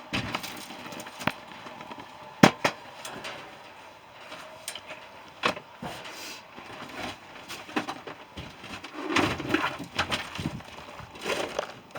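Scattered knocks and clicks of a shed door being shut and people moving about, with one sharp knock about two and a half seconds in.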